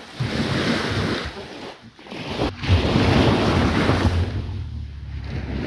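Wind buffeting the microphone over surf washing on the beach, swelling and easing in gusts with a heavy low rumble.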